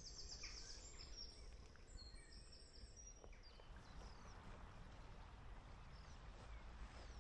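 Faint songbird song: high, rapidly repeated chirps and trills through the first few seconds, then scattered short calls, over a steady low rumble.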